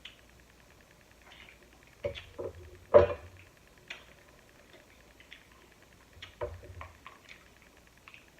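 Seafood shells being cracked and pulled apart by hand: a series of sharp cracks and snaps in two clusters, the loudest about three seconds in, with low thumps against the table or mic underneath.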